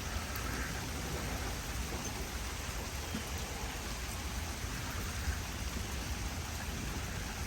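Steady to heavy rain falling, a constant even hiss.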